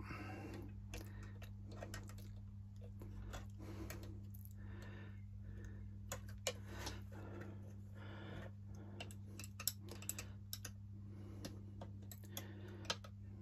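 Faint, irregular small metallic clicks and taps of a small spanner working the brass banjo union and fittings on a model steam locomotive's boiler as it is tightened down, over a steady low hum.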